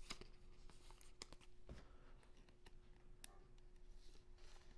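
Near silence, broken by scattered faint light clicks and rustles of football trading cards and a plastic card sleeve being handled, over a faint steady hum.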